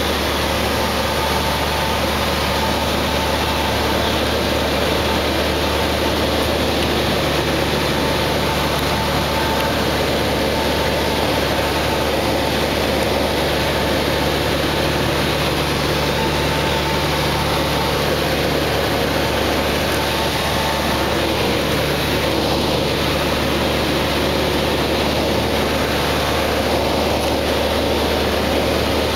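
Steady drone of a single-engine propeller plane's engine and propeller, heard inside the cockpit during a descent.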